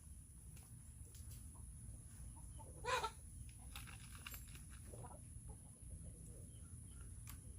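Chickens clucking, with one short, louder call about three seconds in and a few fainter clucks around it.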